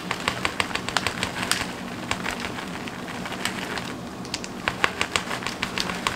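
Shredded mozzarella being poured from a plastic bag into a plastic measuring cup: irregular light crinkling of the bag and ticking of the shreds, over a low steady hum.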